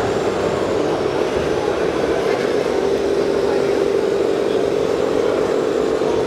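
A 1:16 scale RC Demag AC 1300 truck crane running while working its lattice boom: a steady mechanical hum that grows a little firmer partway through, over the general noise of a busy hall.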